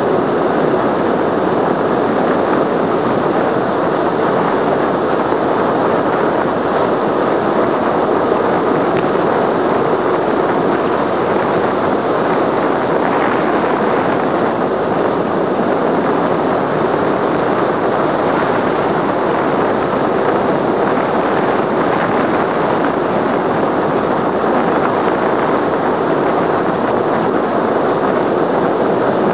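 Steady, loud wind rushing over the microphone of a camera on a road bike descending at speed.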